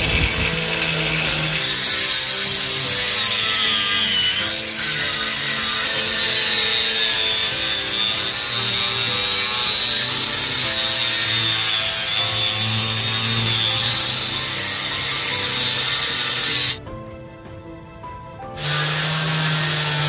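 Angle grinder with a sanding disc grinding across wooden wall planks: a loud hiss of abrasive on wood over a whine that wavers as the disc is pressed on. It cuts out for about two seconds near the end, then starts again.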